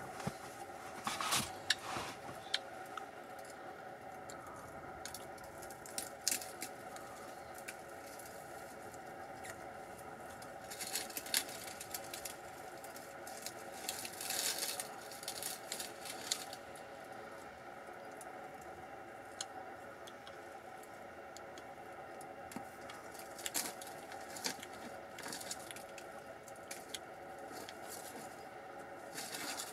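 Newborn African elephant calf, less than a day old, making hungry lip-smacking and sucking sounds as it searches for its mother's nipple to suckle. The smacks come in irregular clusters of short wet clicks.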